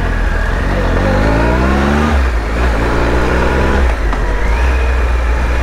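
Triumph Tiger 1200's three-cylinder engine pulling away under throttle. The revs rise, drop at an upshift about two seconds in, rise again, and drop at a second upshift about four seconds in. A strong low rumble runs underneath.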